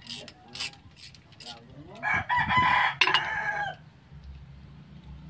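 A rooster crows once, loud, about two seconds in, for under two seconds. Before it come a few sharp metallic clicks from wrenches working on the engine.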